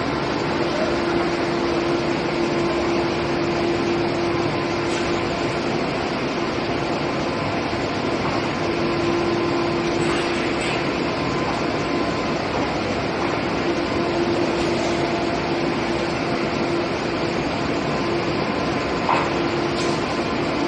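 Steady machinery drone of an aluminium billet homogenizing furnace installation, with a constant low hum and a few faint ticks.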